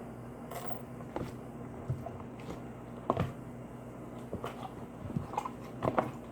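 Sticky homemade slime being worked in a bowl: scattered small clicks and wet smacks at uneven intervals over a steady low hum.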